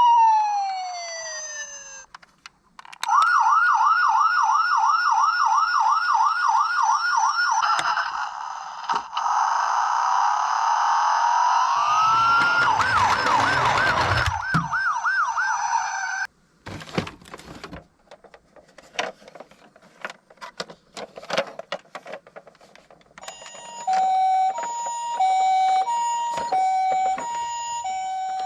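Electronic sirens from toy police car and ambulance minicars: a fast, wavering wail, then a second siren overlapping it, then a stretch of small plastic clicks and clatter. Near the end comes a repeating two-tone hi-lo beep in the manner of an ambulance siren.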